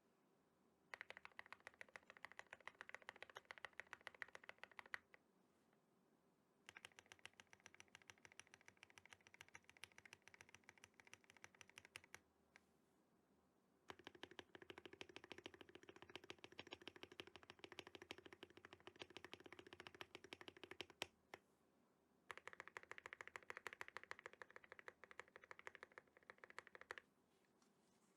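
Typing on a GMMK Pro mechanical keyboard with a polycarbonate plate and lavender switches: four runs of fast, quiet keystrokes with short pauses between them.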